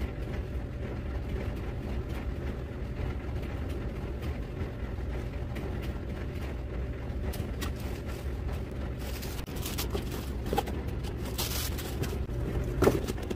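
Steady low background rumble with scattered light clicks of handling, then near the end a brief rustle of plastic and cardboard and a sharp knock as a piston is taken from its cardboard box.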